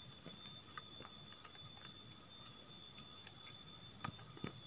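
Faint scattered ticks and taps from a gangsir, a giant burrowing cricket, kicking and scrabbling inside its burrow, stirred up by red ants put into the hole; the taps come a little stronger near the end.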